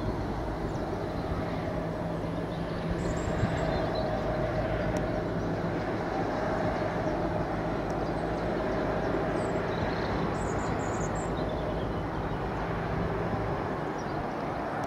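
Heavy diesel freight locomotive running steadily as it approaches slowly with a train of wagons, a constant low engine hum with a steady higher whine over it.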